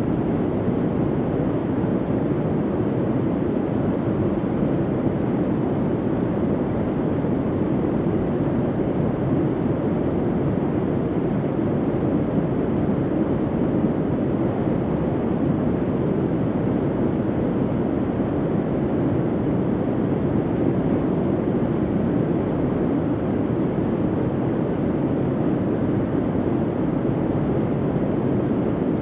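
Soft bunker ambient hum: a steady, low, even drone with no rhythm and no changes.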